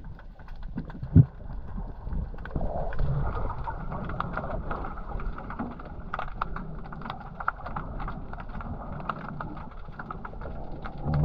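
Muffled underwater sound of moving water with a low rumble and many small crackling clicks, and one sharp knock about a second in.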